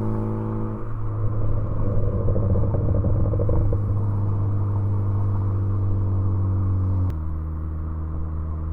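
Turbocharged 2.0-litre four-cylinder engine of a tuned Ford Focus ST, heard through an aftermarket Cobb catback exhaust, running at a steady engine speed with a droning exhaust note. About seven seconds in, the note drops abruptly to a lower steady pitch.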